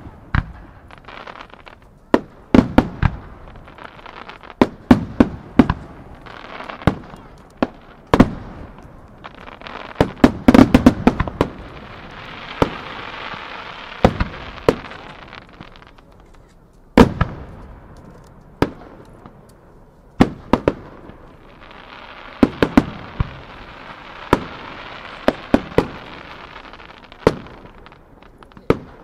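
Aerial fireworks shells bursting in a steady series of sharp bangs, each trailing off in an echo, with a rapid cluster of reports about ten seconds in. Between the bangs, stretches of crackling hiss come around the middle and again in the last third.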